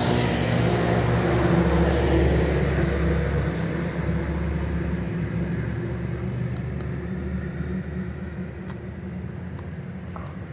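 A motor vehicle passing close by on the street: engine rumble and road noise swell at the start, are loudest for the first few seconds, then slowly fade away.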